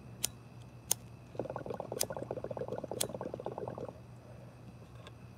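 Water pipe (bong) bubbling for about two and a half seconds as smoke is drawn through the water, with a few sharp clicks before and during it.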